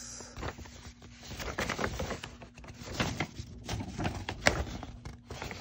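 Rustling and irregular light clicks and knocks of a craft kit's contents being handled and unpacked by hand.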